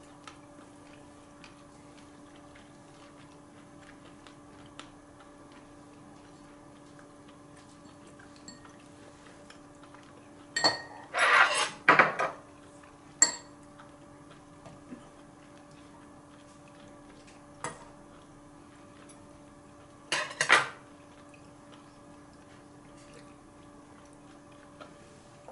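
Spoons and chopsticks clinking and scraping against ceramic bowls and a cast-iron pot during a meal. There are a few short bursts about ten to thirteen seconds in, a lone clink near eighteen seconds and another pair around twenty seconds, over a faint steady hum.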